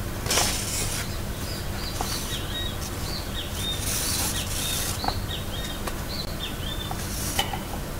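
Thread being drawn through the sewing holes of a paper book block, with paper pages rustling and a few soft clicks of the needle, in short hissing swishes with light squeaks from the thread's friction, over a steady background hiss.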